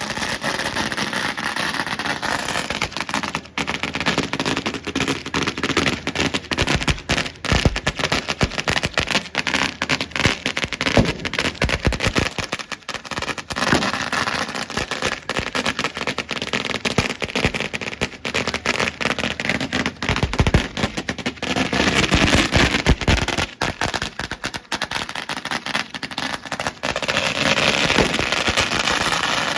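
Fireworks and firecrackers going off in a dense, continuous crackle of sharp bangs.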